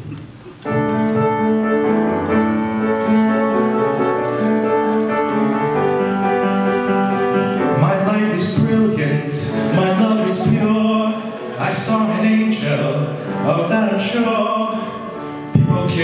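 Live song: a man singing into a microphone with upright piano accompaniment, long held notes at first, and acoustic guitar strumming joining in about eight seconds in.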